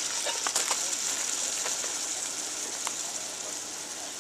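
Hamburger and canned beans sizzling in a Dutch oven over coals: a steady hiss that slowly dies down, with a few faint clicks.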